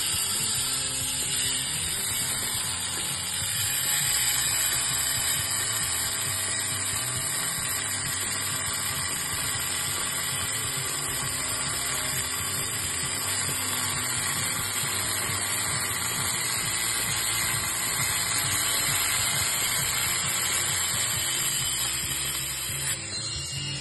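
Angle grinder with a diamond blade running steadily as it cuts into a porcelain paving slab, the cut kept wet with poured water.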